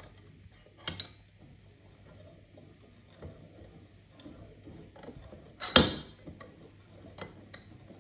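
Steel handle bar of an Eclipse bench vise being turned and slid by hand, clinking against the vise's screw head: a sharp metal clink about a second in, a louder one just before six seconds, and lighter ticks between.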